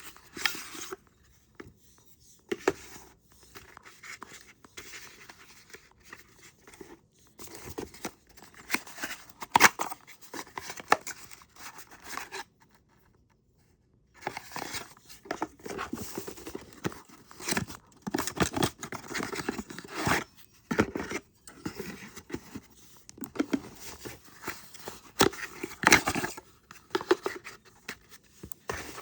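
Unboxing handling noise: packaging crinkling and tearing, with irregular clicks, scrapes and knocks as fletching-jig parts are handled. It drops to complete silence for about a second and a half near the middle.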